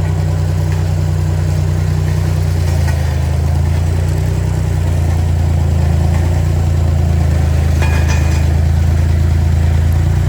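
Road roller's engine running steadily with a deep, even drone.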